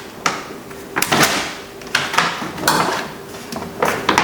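Plastic water shield being peeled off a car door's inner frame, crinkling and rustling in several short bursts.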